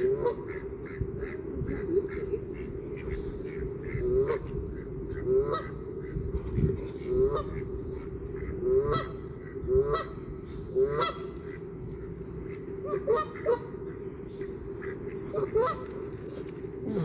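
Waterfowl honking: short, upward-sliding calls repeat about once a second over a steady low hum.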